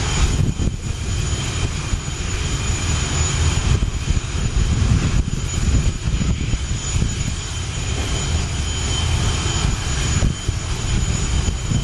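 English Electric Lightning's twin Rolls-Royce Avon turbojets running while warming up before a fast taxi run: a steady jet whine with high tones over a deep rumble.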